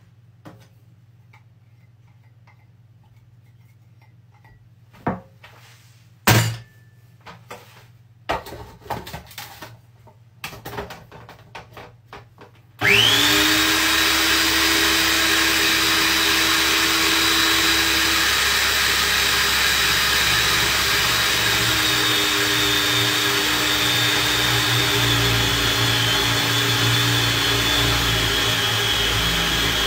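A few clicks and knocks, then about halfway through a small kitchen food processor starts and runs steadily with a high whine, mixing an egg into bun dough.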